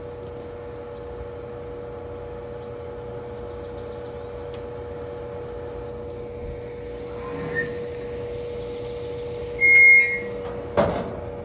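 A steady mechanical hum with a constant tone, broken by one short, loud electronic beep about ten seconds in, then a brief knock.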